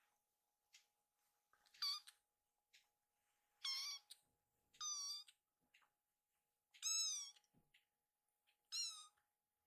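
A very young tabby kitten giving five high-pitched mews, about one every one to two seconds, the fourth sliding down in pitch. They are the calls of a sleepy kitten begging for its mother.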